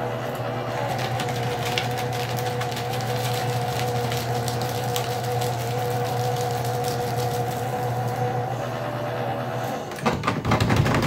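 Electric paper shredder running with a steady motor hum while it cuts a sheet of paper, with rapid crackling during roughly the first six seconds. About ten seconds in, the hum fades and a loud burst of knocking and rustling takes over.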